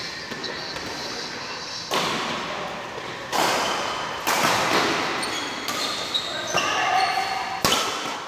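Badminton rackets striking a shuttlecock during a rally, about six sharp hits a second or so apart, each echoing in a large hall.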